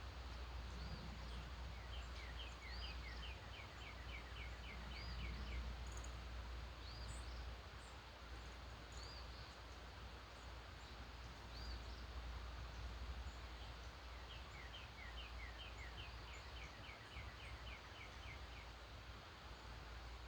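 Songbirds singing faintly: one bird gives a rapid trill of about a dozen short, falling notes twice, and another repeats a short high rising note every couple of seconds, over a steady low rumble.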